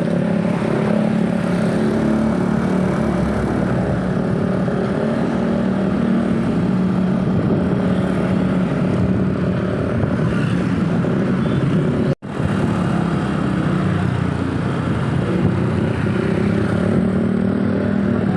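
Road traffic with engines running steadily, one engine's steady low hum standing out and no horn. The sound cuts out for a moment about twelve seconds in.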